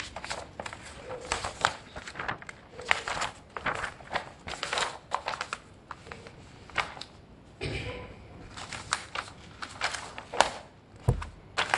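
Textbook pages being turned and flipped through by hand: irregular paper rustling and crinkling, with a dull knock near the end.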